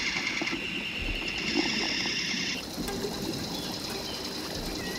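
Steady electric whine of a small remote-controlled toy submarine's motor: several high tones held together that shift in pitch about half a second in and again about two and a half seconds in.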